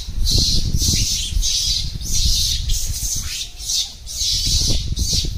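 Outdoor roadside ambience: a high hissing buzz that comes in pulses roughly once or twice a second, over a low rumble, with a couple of faint short calls.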